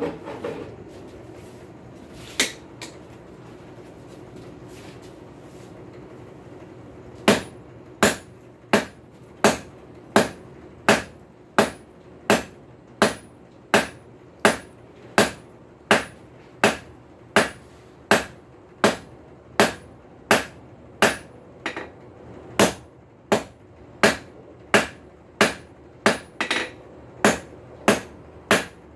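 Hand hammer striking red-hot high-carbon steel on an anvil while forging a square punch. There is a single blow about two seconds in, then a steady rhythm of blows about every 0.7 seconds from about seven seconds on.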